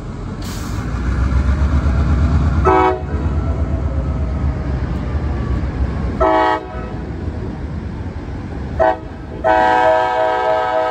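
CSX diesel locomotive approaching with its engine running, the rumble building, as it blows its multi-chime air horn for a grade crossing: three short blasts a few seconds apart, then a long blast held near the end.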